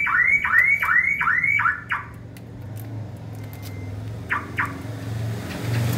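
The pickup's car alarm sounding a run of repeated rising whoops, about three a second, which stop about two seconds in, followed later by two short alarm chirps. A low steady hum from the Isuzu D-Max 1.9 diesel engine on its stock exhaust comes in and grows louder near the end.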